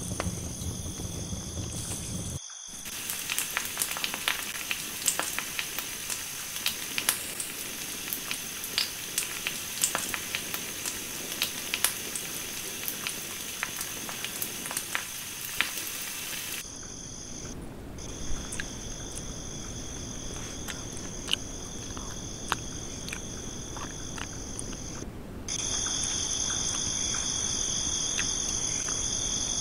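Campfire crackling with many sharp pops as chicken pieces sizzle on a wire grill basket over the embers, while crickets trill steadily behind. After about sixteen seconds the crackling falls away, leaving the crickets, which grow louder near the end.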